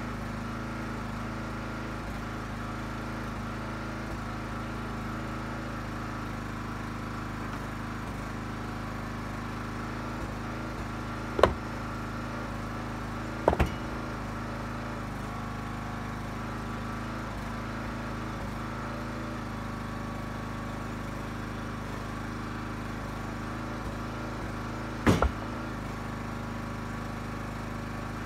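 Huskee 35-ton log splitter's engine running steadily at a constant speed, with three sharp knocks, two close together about halfway through and one near the end.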